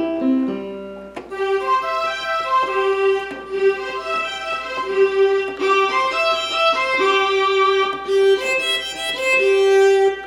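Roland FR-4X digital accordion playing a melody of sustained notes in a violin-like orchestral string voice. The tone changes about a second in.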